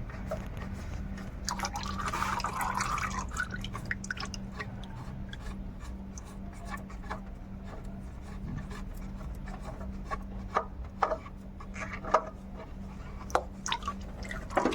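Engine oil trickling and dripping out of the just-removed oil filter on a Jeep Compass petrol engine. Scattered small clicks and a steady low hum run under it.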